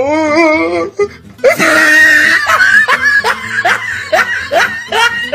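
Loud laughter in quick repeated bursts, mixed with music.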